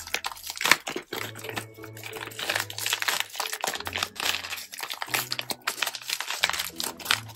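Wrapping being pulled open by hand, with dense irregular crinkling and crackling from the handled packaging.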